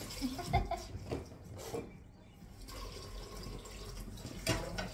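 Water running from a kitchen tap into a sink, with a few knocks from things being handled, the loudest just before the end.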